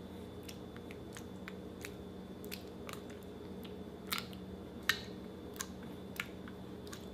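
Clear water slime being pressed and stretched by hand, giving irregular small sticky pops and clicks, the loudest about four and five seconds in, over a steady low hum.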